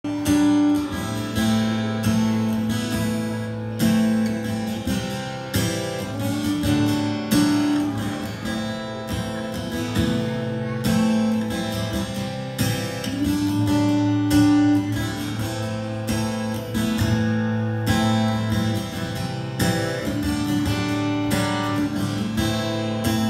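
Live country band playing the instrumental intro of a song: electric and acoustic guitars over held bass notes, with drums keeping a steady beat.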